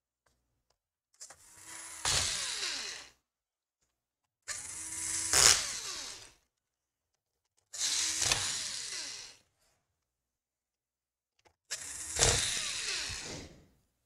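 Cordless electric screwdriver driving the screws of a laptop's bottom cover: four separate runs of about two seconds each, the motor whine dropping in pitch during each run.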